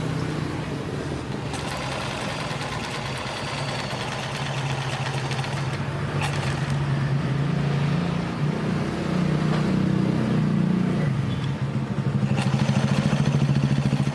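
Janome NS 385 sewing machine's external motor running and driving the needle while it sews zigzag stitches, a steady hum whose pitch shifts as the speed changes, getting louder near the end.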